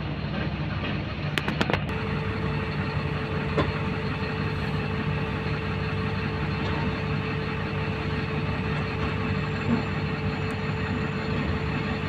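Heavy diesel truck engine idling steadily close by. A quick cluster of clicks comes about a second and a half in, and a steady whine joins soon after.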